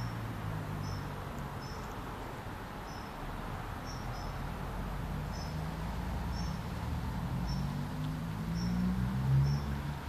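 A small bird calling with short, high chirps, about once a second, over a low engine rumble that grows louder near the end.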